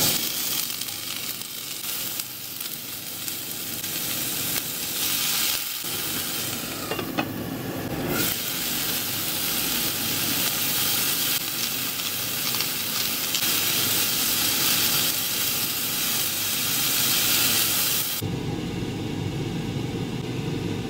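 Broccoli and garlic sizzling in a non-stick frying pan as they are stir-fried with a spatula, then hissing under a lid with a little water added to steam the broccoli. Near the end the sizzle falls away as the broccoli is scraped out onto a plate.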